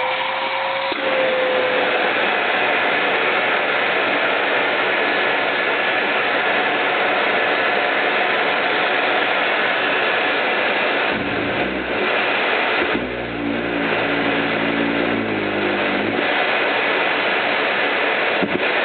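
Numatic James JVH180 cylinder vacuum cleaner running steadily. For a few seconds about two-thirds through, a low rumble and a shifting hum come in over the motor's noise.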